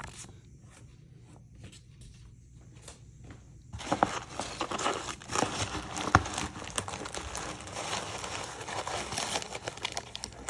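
A few faint handling clicks, then from about four seconds in, continuous crinkling and tearing of packaging as it is pulled open.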